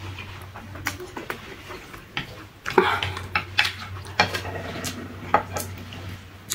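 Close-up eating sounds: a mouthful of ramen noodles slurped in, then sharp clicks of chopsticks tapping the plate as they cut into a fried egg, over a steady low hum.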